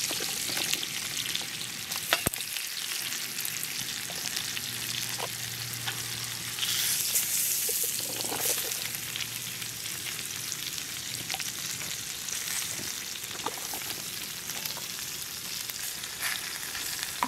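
Pot roast juices sizzling in a Dutch oven on a campfire as cut vegetables are set into the hot pan beneath the lifted roasts. A steady hiss swells near the start and again about seven seconds in, with a few sharp clicks, the loudest about two seconds in.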